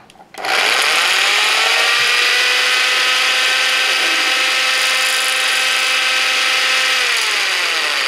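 Cheap corded electric drill spinning up about half a second in, then running at a steady whining speed as it stirs thick nitrocellulose lacquer in a glass jar with a bent coat-hanger whisk. Its pitch drops near the end as it slows.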